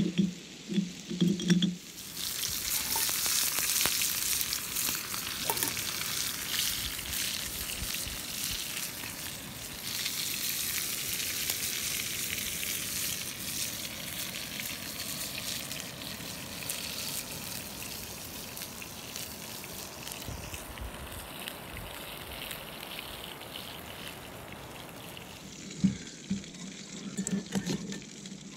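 Chicken skewers sizzling over an open wood fire: a steady hiss dotted with small crackles and pops, starting about two seconds in and fading near the end.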